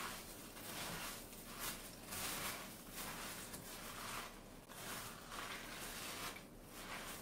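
Sauce-coated Special K cereal flakes being stirred with a silicone spatula in a glass bowl: a soft crunching and rustling with each stroke, about once a second.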